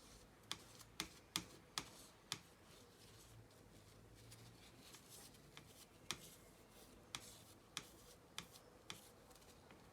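Light, sharp clicks and taps of small hard parts and tools being handled on a desk during laptop cleaning. Five come quickly in the first two and a half seconds, and five more are scattered through the second half, over a faint room hush.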